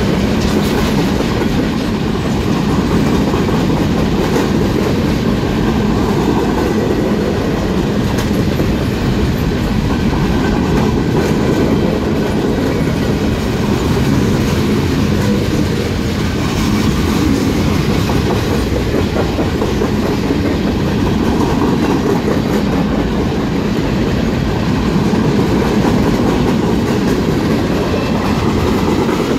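Freight cars of a long mixed freight train rolling past at close range: a steady, loud rumble of steel wheels on the rails, with wheels clacking over rail joints.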